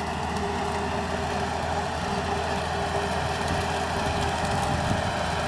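LS XR4040 compact tractor's Tier 4 diesel engine running steadily at about 2400 rpm, heard from a distance, driving a PTO brush hog through tall grass.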